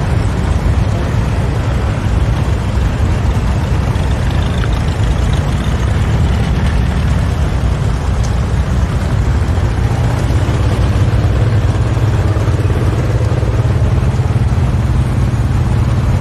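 Antique tractor engine running steadily with a low rumble, a little heavier in the low end from about two-thirds of the way through.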